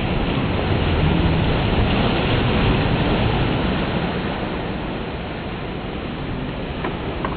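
Small waves washing up a sandy beach: a steady rushing of surf that swells over the first few seconds and then eases.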